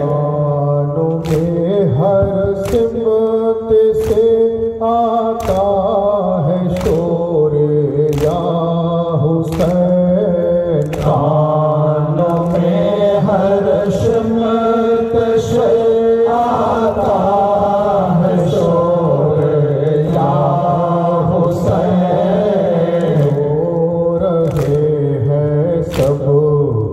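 A noha, a Shia lament, led by one man's voice over a microphone with a group of men chanting along, sustained and wavering in pitch. It is kept in time by matam, men striking their chests in unison about once every 1.4 seconds with sharp slaps.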